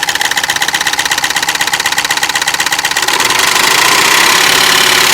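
Mahindra TUV300's three-cylinder diesel engine idling with a rapid, even ticking knock. About three seconds in, the ticking gives way to a louder, steady hiss. The mechanic has ruled out the injectors and the replaced high-pressure pump, and takes the knock for a mechanical fault low in the engine.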